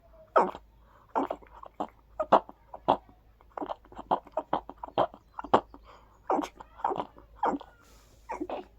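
A person sneezing rapidly into cupped hands, a dozen or so short, sharp sneezes in quick succession, some coming in close pairs. This is a sneeze fit set off by perfume sprayed on the hands tickling the nose.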